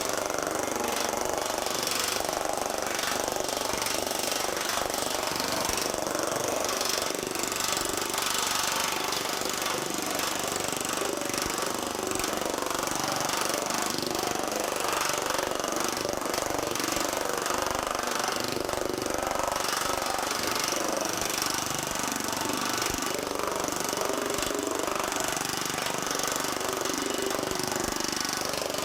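TM Technologies pneumatic air power hammer pounding 20-gauge sheet steel between shrinking dies in a steady, rapid, continuous hammering that cold-shrinks the metal.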